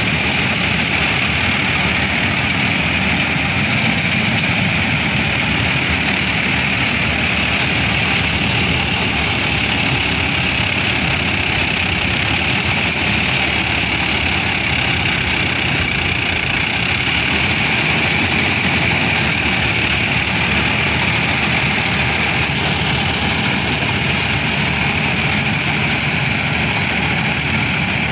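Tractor-mounted paddy combine harvester on a John Deere 5055E tractor running steadily as it cuts rice in a muddy field: the tractor's diesel engine together with the harvester's cutter and threshing machinery, a continuous even drone.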